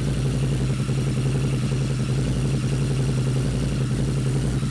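2008 Harley-Davidson V-Rod Night Rod's V-twin engine idling steadily through aftermarket TAB mufflers, running on a newly installed TAB fuel tuner.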